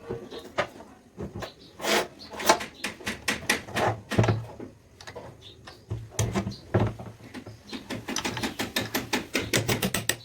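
Metal clicks and knocks from hand work on metal parts, irregular at first, then a fast run of even ticks, several a second, over the last two seconds.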